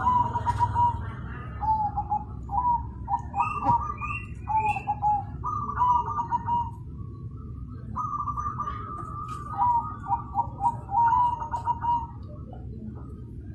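Zebra dove (perkutut) cooing loudly in repeated phrases of quick, stuttering notes, a pause between each phrase.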